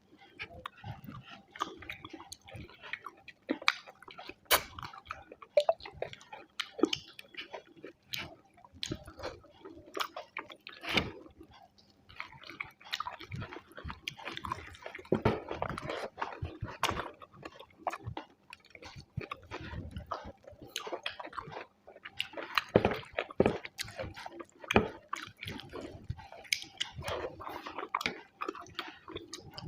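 A person chewing and smacking while eating rice with fish curry and egg curry: irregular wet clicks, smacks and mouth sounds, close to the microphone.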